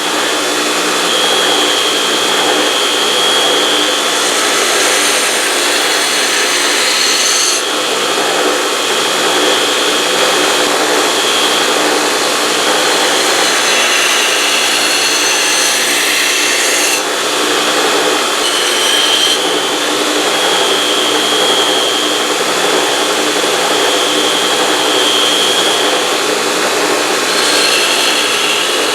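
A power grinder grinding the bevel into a leaf-spring steel knife blade: a steady, loud grinding hiss with a shifting whine. It changes abruptly a few times.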